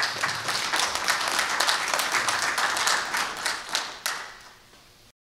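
Audience applauding, a dense patter of many hands clapping that dies away about four seconds in, and the sound cuts off abruptly a second later.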